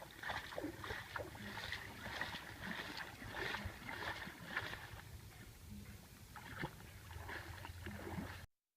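Faint water sounds of a small boat being paddled: soft irregular splashes and light knocks, with a low hum returning about every two seconds.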